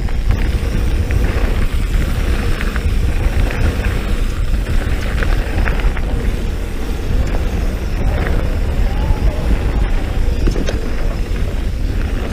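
Mountain bike riding over a dirt road: steady low wind rumble on the camera's microphone and tyre noise, with scattered clicks and rattles from the bike.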